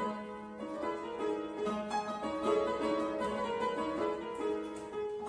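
An early-19th-century fortepiano, built around 1820 in London by William Stodart, playing a dance piece with notes and chords struck in quick succession.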